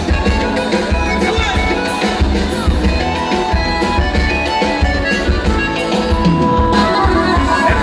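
Loud live sertanejo band music played over a concert PA with a steady bass-drum beat, heard from within the crowd.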